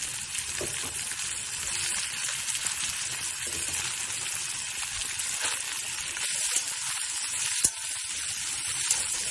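Sliced onions sizzling in hot butter with garlic and ginger in a kadai, a steady hiss as they begin to sauté. A single sharp click about three-quarters of the way through.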